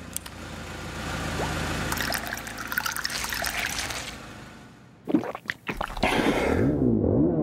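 Water trickling and gurgling, with a glass involved, for the first few seconds. Then come a few sharp clicks, and near the end a warbling tone that slides up and down about twice a second.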